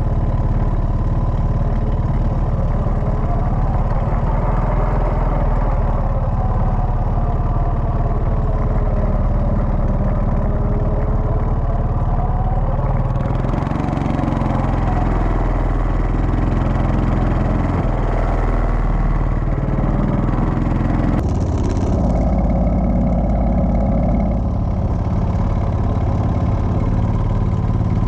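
Quad bike (ATV) engines running while riding over sand dunes, the pitch rising and falling as the throttle opens and closes, with wind rushing over the microphone.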